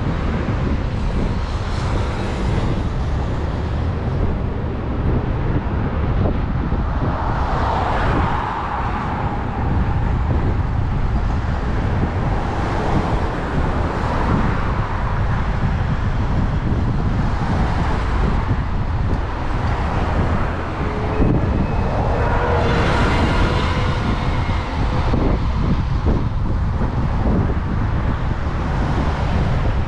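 City street traffic: cars passing one after another over a steady low rumble.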